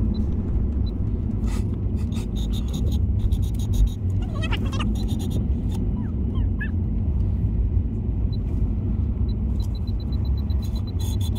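Steady low rumble of a car moving slowly, heard from inside the cabin, with scattered light clicks and a few brief high-pitched rising sounds.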